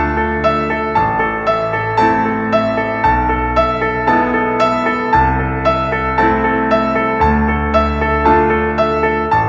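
Background music: a piano plays a steady repeating pattern of notes, about two a second, over bass notes that change every two seconds or so.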